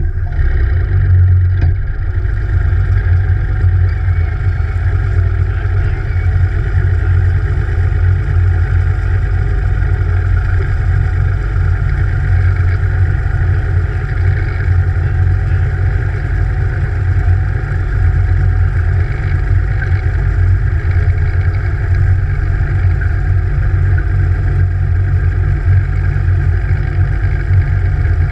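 Evinrude E-TEC G2 150 HO outboard, a direct-injection two-stroke V6, running steadily under way with no clear change in engine speed.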